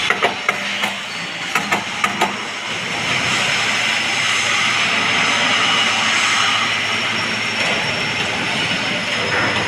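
Submerged arc welding equipment running with a steady hiss and a faint high whine. A few sharp clicks come in the first two seconds.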